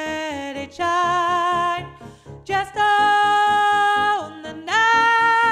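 Alto line of a choral rehearsal track, sung as long held notes with vibrato that slide at their ends, over piano accompaniment playing steady repeated chords.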